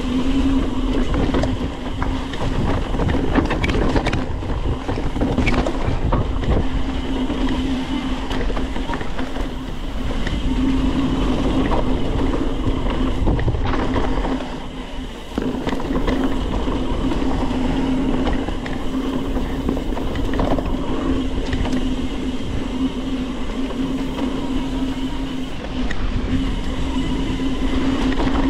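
Mountain bike ridden over a dirt trail: continuous rolling tyre noise and a steady buzz, with frequent rattles and knocks from the bike over bumps, easing briefly about halfway through.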